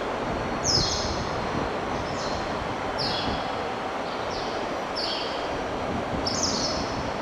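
N700S Shinkansen train pulling out slowly over the station points, its running noise a steady rumble and hiss as it moves away. Short, high, falling chirps repeat every second or so over it.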